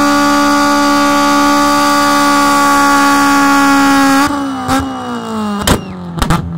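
Honda hatchback's engine held steady at high revs during a burnout. About four seconds in the revs fall away, and a few sharp cracks follow, the loudest near the end.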